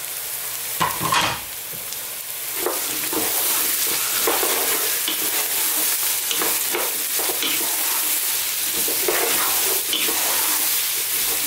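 Diced vegetables sizzling in oil in a stainless steel pot while a wooden spoon stirs them, scraping across the pot in short strokes. A knock comes about a second in, and the sizzle grows louder about two seconds in once the stirring gets going.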